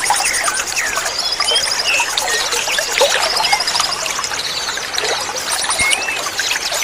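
Many small songbirds chirping and trilling at once, with quick repeated notes and short whistled glides, over the steady trickle of running water.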